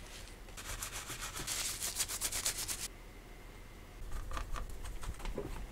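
Paper tissue rubbed quickly back and forth, about nine strokes a second for two seconds, wiping the laptop's CPU and heatsink contact surface. From about four seconds in, fainter scraping strokes as a screwdriver fastens the heatsink down.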